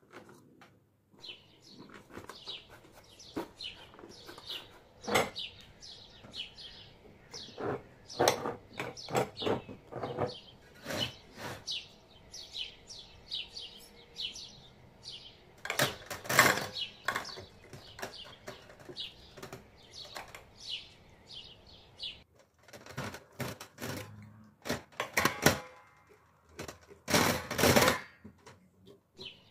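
A small bird chirping in quick, repeated short notes, over knocks and clinks of cucumbers and chili peppers being pushed into glass jars. The loudest knocks come about halfway through and near the end.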